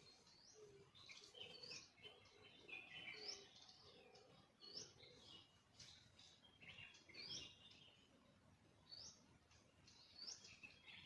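Faint bird calls: a short high note repeated about once a second, mixed with scattered chirps.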